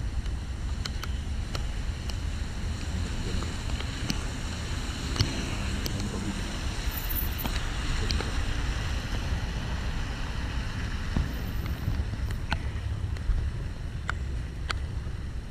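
Steady rumble of wind buffeting the microphone in the rain, with scattered sharp ticks of raindrops striking the camera.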